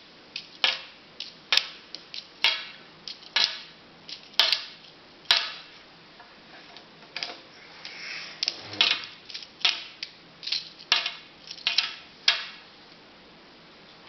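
Plastic magnetic building tiles clicking and clacking against one another as the squares are picked out and set together, in irregular sharp clicks, about one a second at first and in quicker clusters in the second half.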